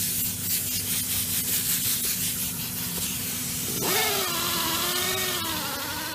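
Small mini buffer polishing clear coat with compound: a steady rubbing hiss, then a wavering motor whine that rises in pitch about four seconds in.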